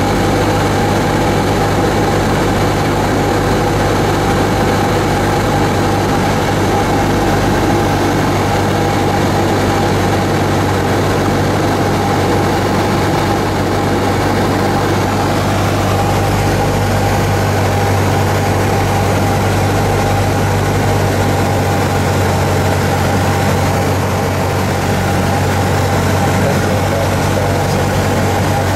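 Cessna 172's piston engine and propeller running steadily in flight, heard from inside the cabin.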